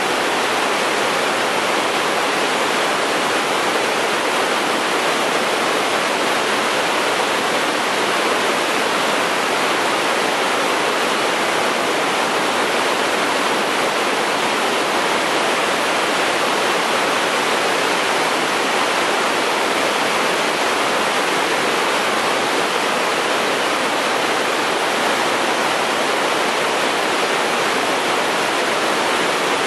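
Steady, even rushing roar of a long double-stack intermodal freight train rolling across a steel trestle bridge, with no clatter, horn or engine note standing out.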